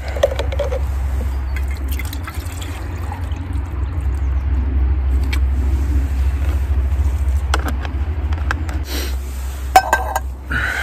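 Water poured from a plastic water jug into a metal camping pot, with a few sharp metallic clinks near the end as the pot is handled. A steady low rumble sits underneath and stops shortly before the clinks.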